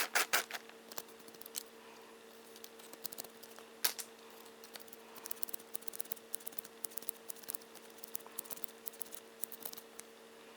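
Small tools and metal parts of a model locomotive's disassembled motor and chassis clicking and scraping as they are handled and cleaned. A quick cluster of clicks comes at the start, a sharp click about four seconds in, then a run of light rapid ticks, over a steady electrical hum.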